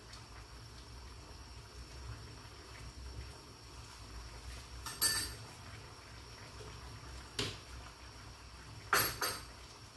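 Kitchenware clinking: a few sharp metal and dish clatters, about five seconds in, again near seven and a half seconds, and a quick double clink near the end, over a low steady background.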